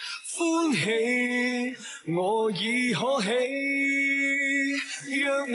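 A man singing a slow Chinese-language ballad, holding long notes and sliding between pitches, over light backing music: the drama's theme song.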